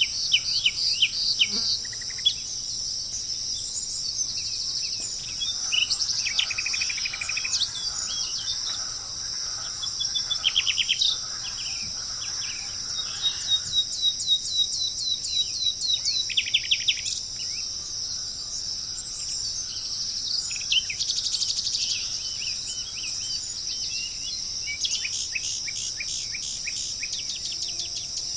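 Several songbirds singing quick runs of repeated chirps and trills, on and off, over a steady high insect drone.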